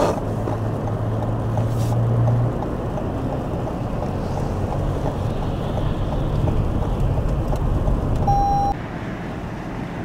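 Blizzard wind buffeting the microphone over a low, steady vehicle engine hum. A short electronic beep sounds about eight seconds in, and the wind noise drops suddenly just after it.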